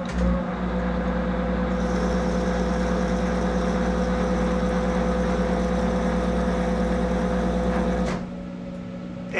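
Monarch 10EE lathe running under power through a threading pass: a steady hum with a constant whine. About eight seconds in it stops abruptly as the switch clicks out and dynamic braking halts the spindle.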